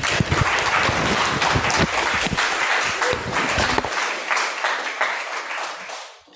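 Audience applauding: a dense patter of many hands clapping that thins out and fades away near the end.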